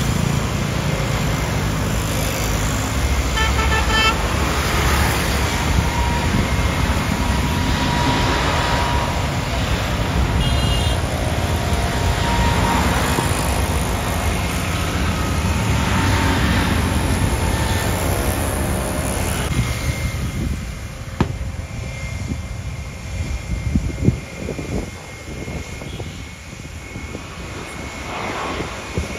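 Road traffic rumbling past, with a few short car horn toots in the first half; the traffic thins and the rumble drops about two-thirds of the way through.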